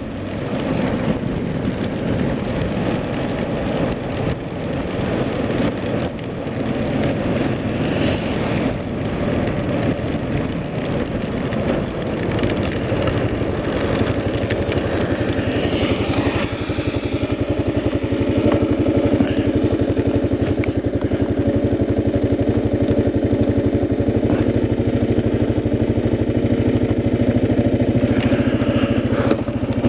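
Kawasaki KLR motorcycle engine running on the road, mixed with the rushing hiss of wind and tyres on wet pavement. About halfway through, a brief louder hiss passes, and the engine settles into a steady, even drone.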